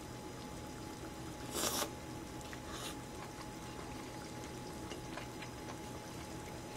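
A short slurp of sukiyaki noodles about one and a half seconds in, with a fainter slurp near three seconds, then a few faint chewing clicks over a low steady hiss.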